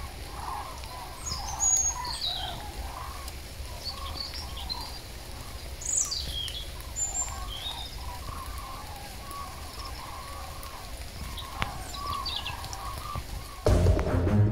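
A flock of migrating birds calling, many overlapping calls at once, with a few higher, sharper chirps among them. Background music comes in near the end.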